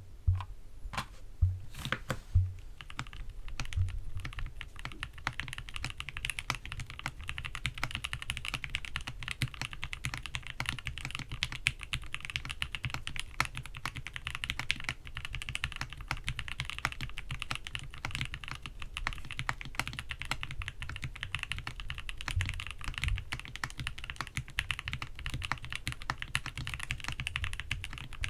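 GMK67 mechanical keyboard with Gateron G Pro Yellow linear switches, tape-modded and foam-filled, being typed on. A few separate, heavier keystrokes come in the first few seconds, then steady, fast typing.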